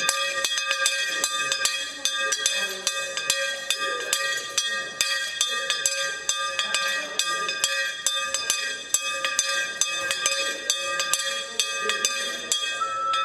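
Hand bell rung rapidly and continuously, about four strikes a second, with a ringing metallic tone that carries between strikes. It is the bell that opens the bidding at a fish market auction.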